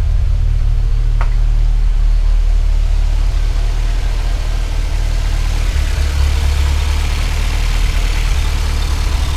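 Turbocharged Nissan KA24DE inline-four idling steadily with a deep, low drone, recently rebuilt and running on a PT5857 turbo. About halfway through, more hiss and mechanical noise from the engine bay joins the low drone. There is a brief sharp click about a second in.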